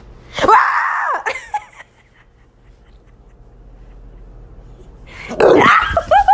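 A household pet crying out loud twice: one cry about half a second in, and a second longer run of pitched calls near the end.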